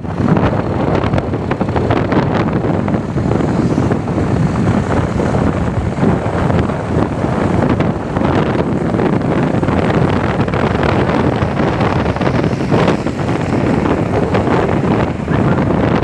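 Wind buffeting the microphone: a loud, steady, rough rushing roar.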